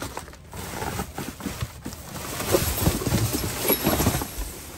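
Hands rummaging through cardboard boxes and plastic bags of trash in a dumpster: rustling and crinkling with a quick run of knocks and bumps, busier and louder in the second half.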